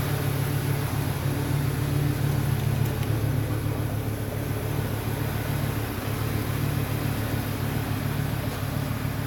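Volvo 850 T5's turbocharged five-cylinder engine idling steadily, with its vacuum-line leaks repaired.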